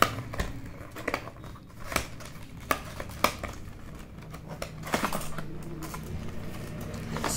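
Cardboard headphone box being handled and opened: irregular sharp taps, scrapes and rustles as the flaps are worked and the inner box slides out, over a low steady hum.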